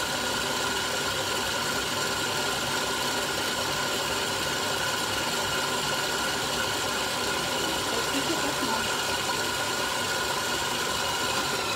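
Electric tilt-head stand mixer running steadily, a motor whine over a constant whirr, as its beater creams butter, sugar, egg, vanilla and lemon in the steel bowl.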